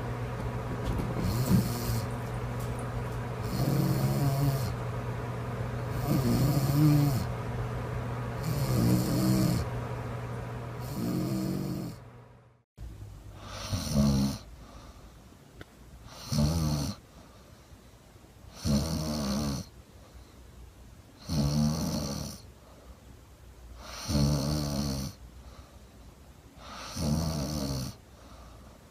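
A sleeping woman snoring, one snore about every two and a half seconds, with a steady hum behind the first half. About twelve seconds in, the recording breaks off and continues with a similar snore on a quieter background.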